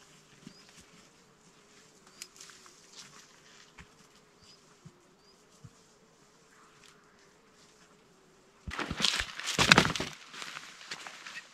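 A flying insect's faint, steady whining hum that wavers slightly in pitch. About nine seconds in, loud crunching and rustling footsteps come up close through dry brush and twigs.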